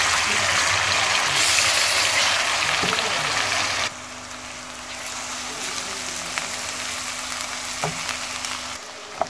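Ground onion and garlic paste sizzling as it fries in hot oil in a pan. The sizzle drops sharply in level about four seconds in and carries on quieter.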